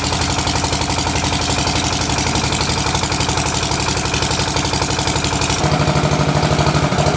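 Kirloskar 5 kVA generator's engine running steadily with a fast, even beat. About three-quarters of the way through, the sound shifts and a strong low hum comes in, a little louder.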